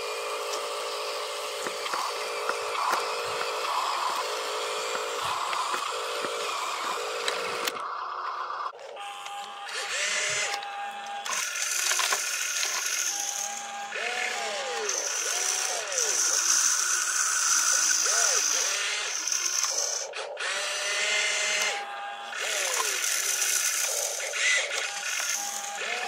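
A radio-controlled Huina dump truck's electric motor and gears whine steadily. About eight seconds in the sound changes abruptly to the whine of an RC excavator's motors, rising and falling in pitch in short glides as it works.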